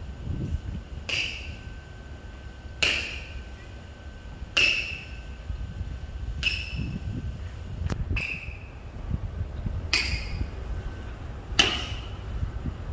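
Sharp slaps of a hand striking the foot during wushu slap kicks, seven of them at an even pace about one every 1.7 seconds, each ringing briefly in a large hard-floored hall, over a steady low hum.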